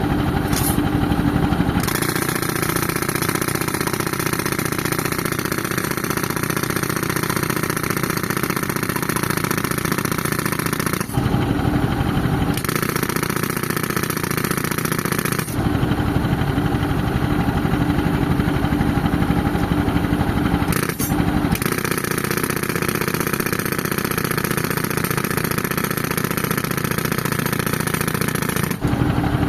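Pneumatic breaker hammering reinforced concrete in long bursts, over the steady drone of a tractor-driven air compressor. The hammering stops briefly about 11 and 21 seconds in and again near the end, leaving only the engine running.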